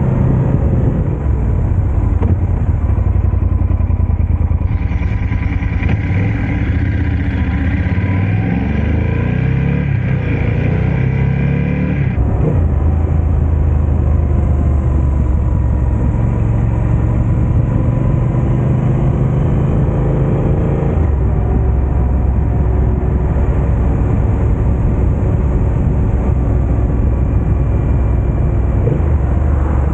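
Motorcycle engine running under way, its pitch rising and falling with speed, with abrupt changes in the engine note twice.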